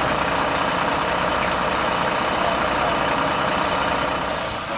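MAN fire engine's diesel engine running steadily at idle, with a brief hiss near the end.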